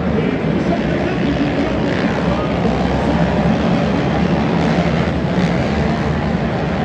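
A pack of quad ATVs racing around a dirt track, their engines merging into a loud, steady drone.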